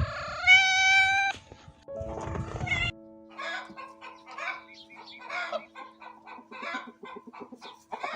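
A cat meows once with a drawn-out whine, then a chicken clucks in a run of short calls, about two a second, over steady background music.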